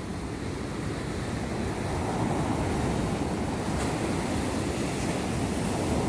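Ocean surf breaking and washing up a sand beach: a steady rushing rumble that grows a little louder about two seconds in.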